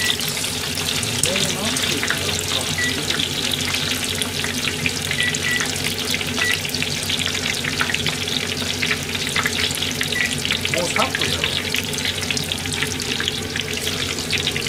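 Food deep-frying in hot oil in an iron pot, with a steady dense crackle of small pops.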